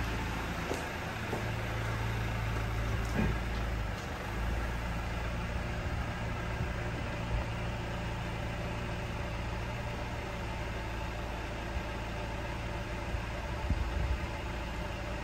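Mercedes E-Class cabriolet idling steadily, a low even hum, while its power soft top folds open.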